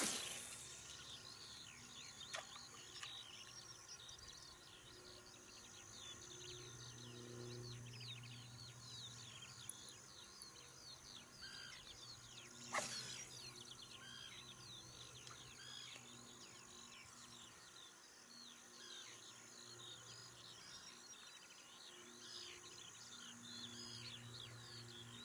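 Rural lakeshore ambience: a dense chorus of small birds chirping and insects trilling, over a faint steady high buzz. A brief, loud swish at the start as the spinning rod is cast, and a second short sharp noise about halfway through.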